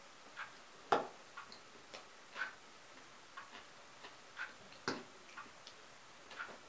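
A fork clinking against a bowl of salad, twice with a sharp click, about a second in and near five seconds in. Under it, a faint clock ticks steadily once a second.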